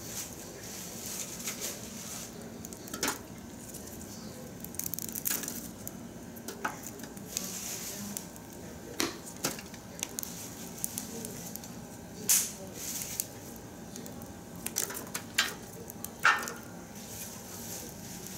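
Wood fire crackling in a steel drum, with sharp snaps and pops at irregular moments and a few short hissing surges. Dry branch sticks are knocked in among the flames.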